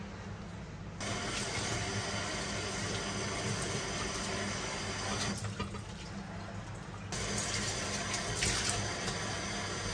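Kitchen tap running into a sink, the water splashing in and around a glass measuring jug as it is rinsed. The flow starts about a second in, eases for a moment past the middle and comes back louder near the end.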